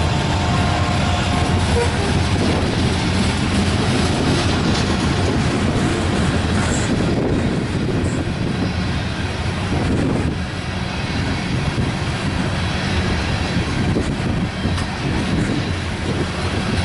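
Coal train's open-top coal cars rolling past, their steel wheels running steadily over the rails.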